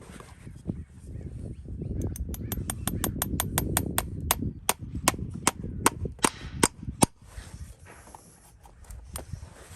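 Farrier's hammer tapping in a quick series of sharp blows, about twenty in five seconds. The later blows are louder and more spaced, with a low rumble of handling underneath.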